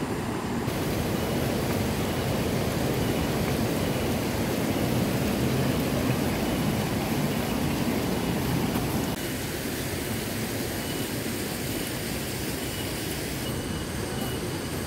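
A river running high after heavy rain: a steady rushing noise that drops a little in level about nine seconds in.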